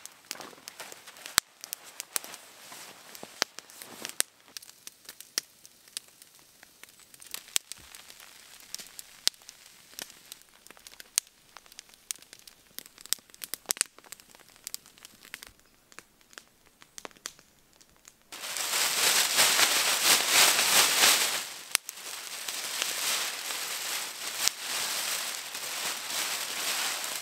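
Campfire crackling with scattered sharp pops. About eighteen seconds in, a louder continuous rustling and crinkling of synthetic fabric starts, a sleeping bag being shifted, loudest for the first few seconds.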